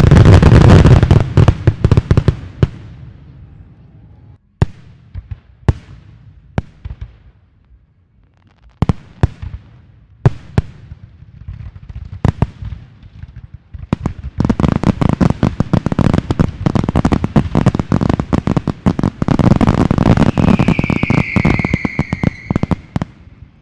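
Fireworks going off: a dense run of crackling bangs, then scattered single pops, then another long crackling barrage. A high whistle slides down in pitch near the end.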